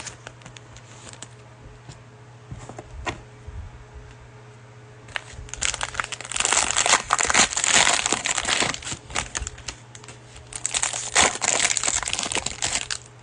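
Plastic cello-pack wrapper of trading cards being crinkled and torn open by hand, in two loud stretches of crackling in the second half after a few light clicks.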